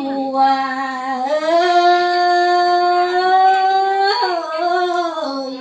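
A single voice singing lượn, the Tày folk song style, in long drawn-out notes: it holds a low note, steps up and sustains a higher one about a second and a half in, gives a quick upward flick and falls back near four seconds, then settles on the lower note again.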